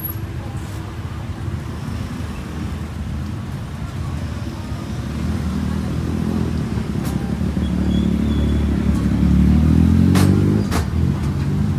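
A motor vehicle engine running close by, growing louder from about halfway and loudest near the end, its pitch wavering a little. A couple of sharp clicks come near the end.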